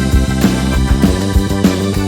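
Instrumental band music from an unmixed studio recording, with no singing: keyboards, guitar and bass over a steady drum beat.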